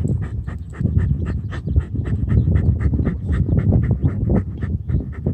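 Corgi panting rapidly, about five or six quick breaths a second, while biting a mini soccer ball, with a low rumble underneath.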